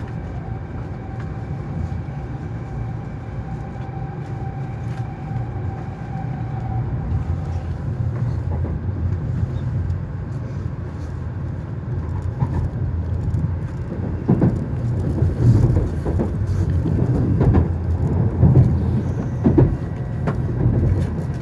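Cabin noise inside an N700S Shinkansen car running toward its next stop: a steady low rumble with a faint steady whine that stops about a third of the way in. In the second half irregular knocks and thumps come through the rumble, growing louder toward the end.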